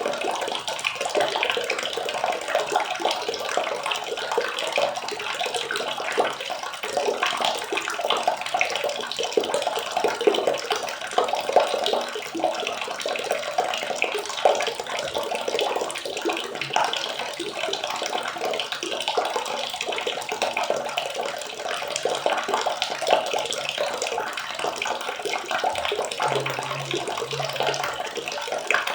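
Water splashing and trickling steadily, a dense stream of small crackling splashes.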